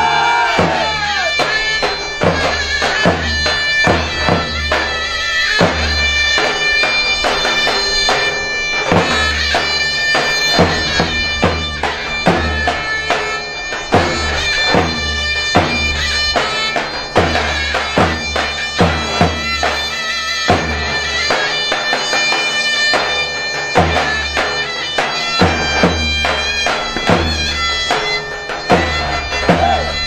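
Zeybek folk music: a zurna playing a held reedy melody over the strokes of a davul drum.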